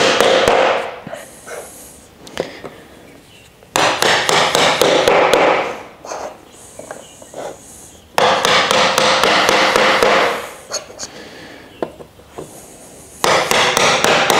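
A mallet knocking wooden uprights down into the triangle connectors of a shelf section. It lands quick runs of sharp blows, each run about two seconds long, with short pauses between them.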